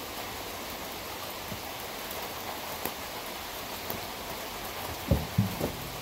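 Steady hiss of rain falling on a surface, with a few faint ticks of drops. A few low thumps come about five seconds in as the recording phone is handled.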